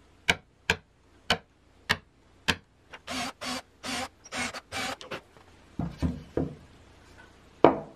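Five sharp clicks of a hand marking tool at the marked hole positions, then a power drill running in short bursts as it bores into the softwood beam of the bandsaw frame. Wood knocks near the end as the trunnion support is set back on the frame.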